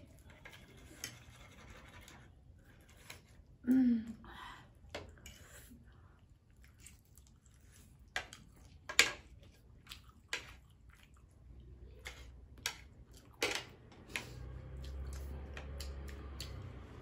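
Close-up eating sounds: instant noodles being chewed and slurped, with scattered light clicks and scrapes of chopsticks and a fork on china plates. A short vocal sound about four seconds in, and a low steady hum comes in near the end.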